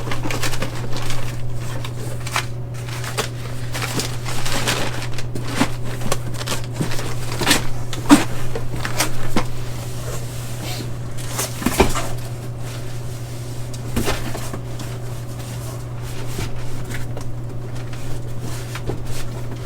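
Cardboard boxes and packed parts being handled: scattered rustling, knocks and a few sharper clunks. Under them runs a steady low hum from a refrigerated Coke machine.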